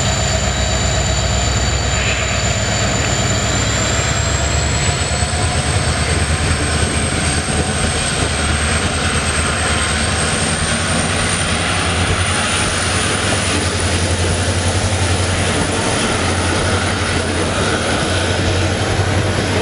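WDP-4D diesel locomotive and its passenger coaches pulling away: a steady low engine rumble with rolling wheel noise, and a high whine that slowly rises in pitch as the train gathers speed.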